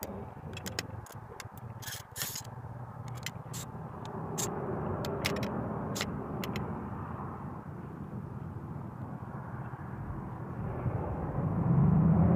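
A run of light, sharp clicks and taps from the parts of a Crosman 1077 air rifle being handled and fitted together in the first half. Near the end a motor vehicle's low engine rumble comes in and grows louder.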